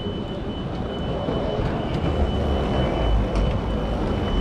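Background din of a large terminal hall: a steady low rumble with a thin high tone held through most of it and a few light clicks.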